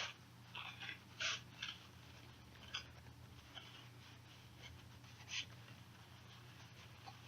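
Baseball trading cards being sorted and stacked by hand: faint, brief papery swishes and taps, about half a dozen scattered through, over a low steady hum.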